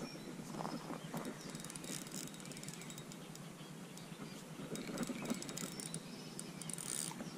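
Faint clicking and rustling from a spinning reel and rod being worked while a fish is played on a bent rod, over quiet lakeside ambience.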